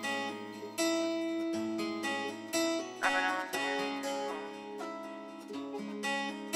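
Instrumental music: plucked string notes over a slow bass line.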